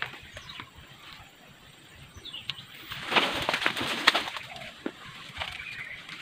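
Dry leaves and undergrowth rustling and crackling as someone pushes through forest brush, loudest about three seconds in. Faint bird calls sound in the background.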